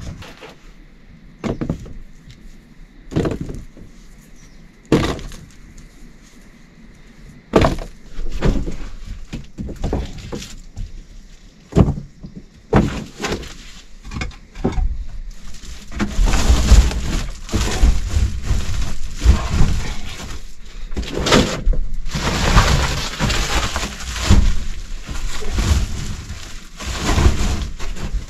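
Irregular sharp knocks and cracks, a few seconds apart at first, then coming thick and louder for the second half.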